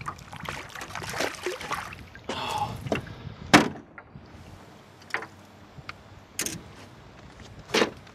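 Hooked smallmouth bass splashing at the surface beside the boat for the first couple of seconds, then a sharp knock about three and a half seconds in as the fish is landed, followed by a few lighter knocks and thumps from handling it in the boat.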